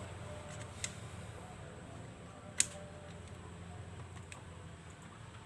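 Faint, sparse clicks and taps of laptop parts being handled and fitted back together, with a sharper click about two and a half seconds in.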